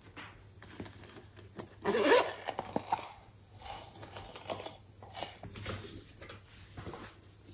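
A small plastic makeup case being handled and opened: a run of small clicks and taps, with a louder rustling scrape about two seconds in, then taps as loose glitter is shaken out of it onto the slime.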